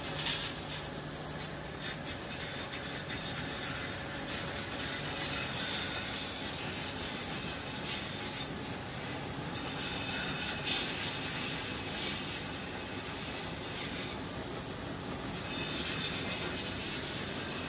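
Steel rim-strip roll-forming machine running steadily, with a hiss that swells and fades three times.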